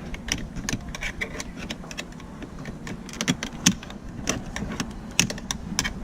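Irregular plastic clicks and taps from handling a 2012 Mazda 3's door lock switch panel, over a steady low rumble.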